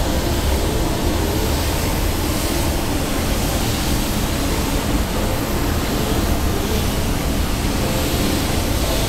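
Steady hiss of compressed air from an Iwata WS-400 Series 2 spray gun laying down silver metallic paint on a car panel.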